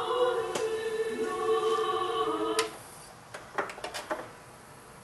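Music with singing playing from a Sony five-disc CD changer cuts off abruptly with a click about two and a half seconds in. About a second later comes a quick run of mechanical clicks as the changer's disc carousel moves to the next disc.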